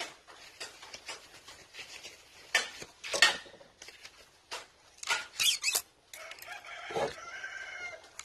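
Short scrapes and rustles of copper winding wire being handled and pulled from the stator of a 3 hp swimming-pool pump motor. Near the end a rooster crows for about two seconds.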